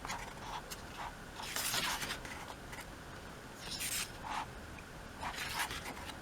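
Glossy pages of an album photo book being turned and handled: three short papery rustles, about two seconds apart.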